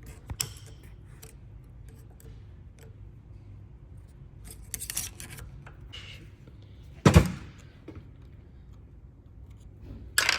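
Small metal clicks and scrapes of a circlip being fitted onto a propeller shaft to retain a new centre bearing, with one loud sharp knock about seven seconds in.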